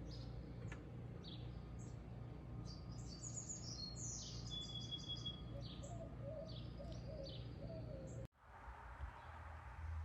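Small birds chirping and trilling over a low steady hum. About eight seconds in the sound cuts off abruptly and a different, steady background noise takes over.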